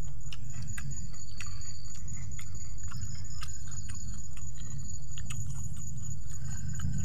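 People chewing and smacking their lips while eating, with many small irregular clicks, over a steady low rumble and a thin, steady high-pitched whine.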